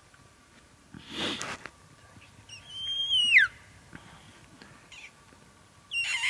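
Two high-pitched cow elk calls: each holds a thin whistle-like note, then falls sharply in pitch, the first about a second long and the second starting near the end and dropping much lower. A short breathy rush comes about a second in.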